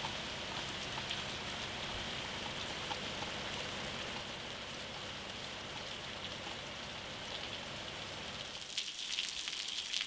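Steady rain falling and dripping onto surfaces, with individual drops ticking more sharply in the last second or two.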